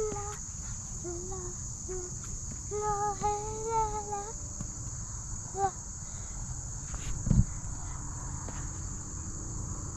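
Steady high-pitched insect chorus, a continuous trill of crickets, under a low rumble. A child's voice calls briefly about three seconds in, and a single thump comes a little past seven seconds.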